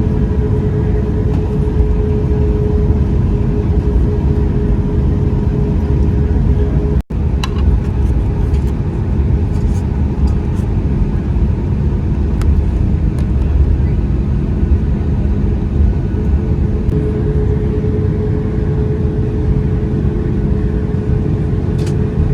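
Airliner cabin noise aboard a Boeing 737 MAX 8: a steady low rumble of engines and airflow with a faint constant hum. The sound drops out for an instant about seven seconds in.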